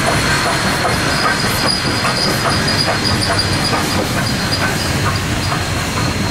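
Queensland Rail BB18¼ class steam locomotive and its train passing close by at speed, wheels clicking rapidly over the track with a steady high-pitched whine above.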